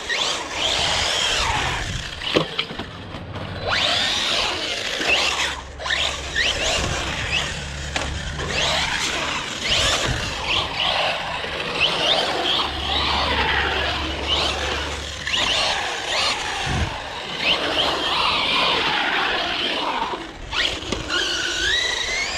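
Electric RC car driving hard in a wet concrete skate bowl: repeated tire squeals and a motor whine that slide up and down in pitch with the throttle, with a low hum in two stretches.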